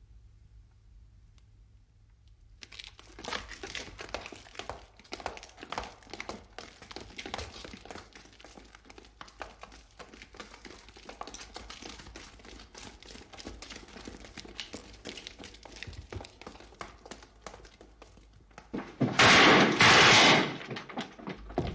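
Many irregular knocks and clatters of soldiers moving with boots and weapons, starting about three seconds in. Two very loud bursts of noise, each under a second, come near the end.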